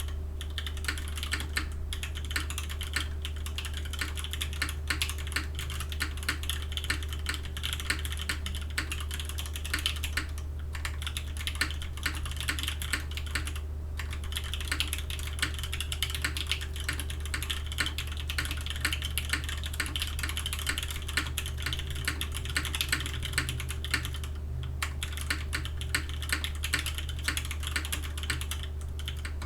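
Continuous typing on a Krush65 mechanical keyboard, top-mounted with an aluminium plate and fitted with Gateron Ink V2 switches. The keystrokes come fast and steady, with brief pauses about 10, 14 and 24 seconds in.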